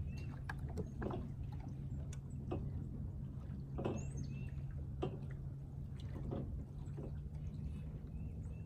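Small waves lapping and slapping against the hull of a fishing boat in irregular little splashes, over a steady low hum.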